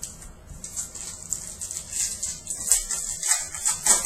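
A trading-card pack wrapper crinkling and tearing as it is opened: a run of irregular crackles, growing louder in the second half.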